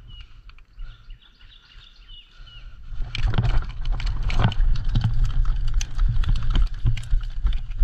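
A small bird chirping repeatedly in the first few seconds. From about three seconds in comes loud close rustling and clicking over a low rumble, which lasts to the end.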